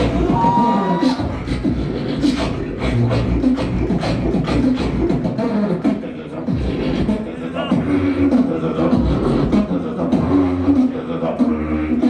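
A beatboxer performing a battle round: a fast run of kick- and snare-like mouth percussion over deep bass hums, with short pitched vocal phrases in the second half.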